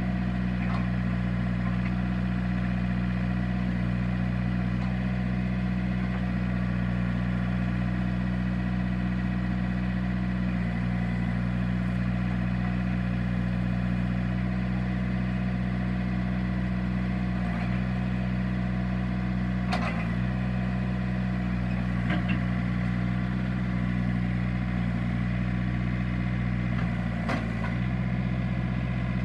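John Deere 110 backhoe's diesel engine running at a steady speed, with a few short clicks or knocks near the end.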